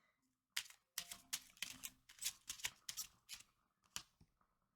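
A deck of cards being shuffled and handled by hand: a quiet run of irregular flicks and taps.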